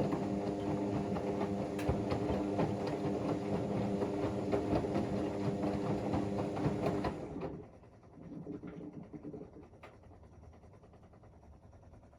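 Whirlpool AWM 864 Aquaprogramm washing machine's drum motor running with a steady hum and a rattly ticking, as the drum turns during a wash cycle; about seven and a half seconds in it stops, leaving only a faint, uneven sound for the pause before the drum turns again.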